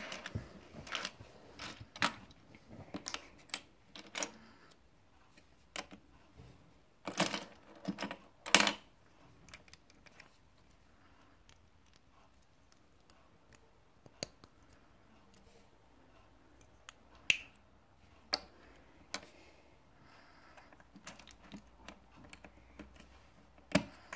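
Plastic Lego bricks clicking and clattering as they are picked up from a pile, handled and pressed together. Busy rattling in the first half, loudest about seven to nine seconds in, then scattered single clicks and snaps.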